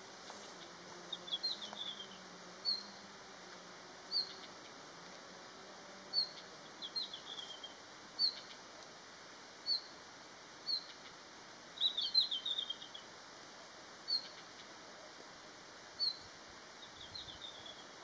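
Male red-flanked bluetail calling: short high single notes repeated every second or two, broken four times by a brief quick twittering phrase that falls in pitch.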